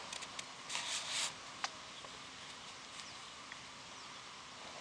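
Quiet night-time lakeside ambience: a few soft clicks and short smacking sounds in the first second and a half, from fish feeding at the surface in the grass, then a low steady hush.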